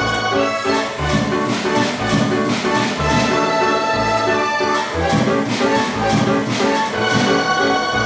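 Automated mechanical orchestra machine playing music, with brass-like sustained notes over a regular bass and percussion beat about once a second.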